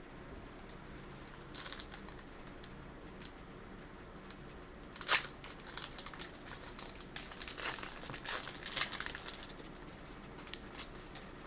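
Crinkling of a foil trading-card booster pack wrapper and handling of cards: scattered rustles and crackles, with one sharp crackle about five seconds in and a busier stretch in the second half.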